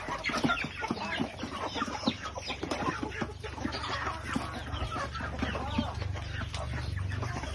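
A flock of native chickens clucking, many short overlapping calls. A low steady hum runs underneath, growing stronger about halfway through.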